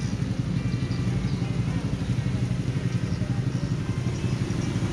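Motorcycle engine running steadily, a low drone with a fast, even pulse.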